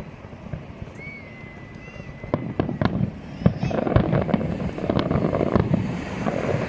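Fireworks display: a thin high whistle holds for about two seconds, then from about two seconds in a rapid run of sharp cracks and bangs sets in, growing denser and louder.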